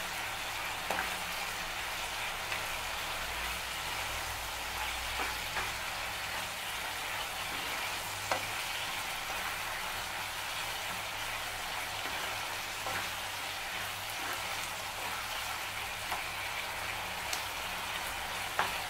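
Tomato curry sizzling steadily in a nonstick frying pan, stirred with a wooden spatula that now and then taps the pan lightly.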